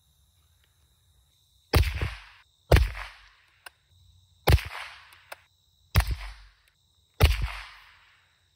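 Five shots from a Rossi RB22 bolt-action .22 LR rifle firing Aguila Super Extra 40-grain rounds, spaced one to two seconds apart, each followed by a short trailing echo. Light clicks come between shots as the bolt is worked.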